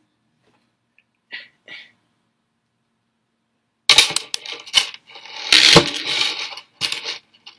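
Metal neck chain clinking and rattling as it is handled and taken off: a cluster of sharp metallic clinks and rustling that starts about four seconds in and is loudest around the middle of that stretch.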